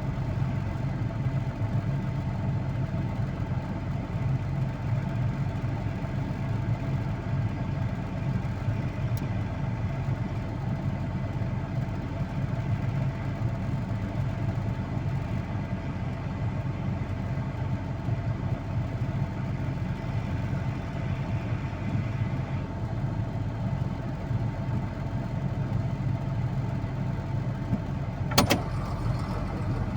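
Vehicle engine running steadily with a low hum, with one sharp knock near the end.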